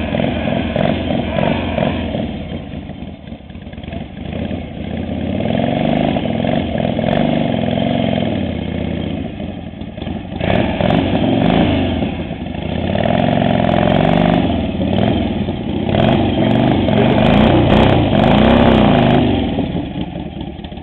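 Harley-Davidson motorcycle's V-twin engine running and being revved several times. Each rev rises and falls over two or three seconds, and the engine drops back toward idle between revs and near the end.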